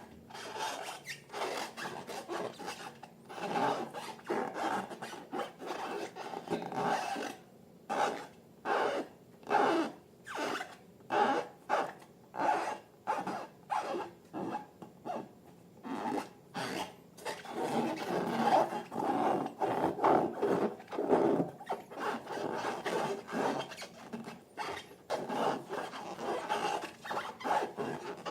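Slime being worked and mixed by hand: repeated wet rasping, rubbing strokes, about one or two a second, running closer together in the later part.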